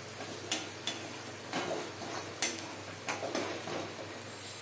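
Onion and green chilli–garlic–cumin paste sizzling in oil in a kadhai while a spatula stirs it, scraping against the pan roughly once a second.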